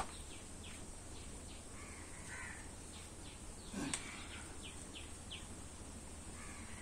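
Faint bird calls: a quick run of short chirps, about three a second, with two longer, harsher calls among them. There is a single soft knock about four seconds in.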